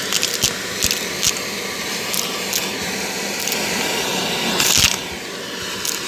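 Shark vacuum cleaner running over carpet, its motor and airflow a steady noise. Sharp clicks and rattles come through it as it sucks up small hard debris such as paper clips and washers, the loudest clatter about five seconds in.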